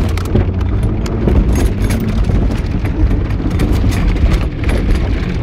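Car driving over a bumpy grass field, heard from inside the cabin: a steady low rumble of engine and ground, with frequent knocks and rattles as the body jolts.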